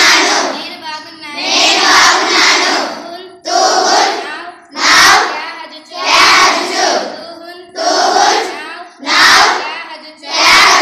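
A group of schoolgirls and women chanting short Kashmiri phrases loudly in unison. The group gives a loud burst every one to two seconds, with quieter voices in between, answering a girl who reads the phrases out.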